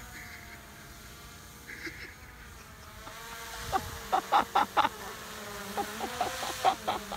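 Quadcopter drone's propellers humming steadily, the pitch wavering slightly as it flies carrying a hooked fish on a line. A cluster of short, louder sounds comes about four seconds in and again near the end.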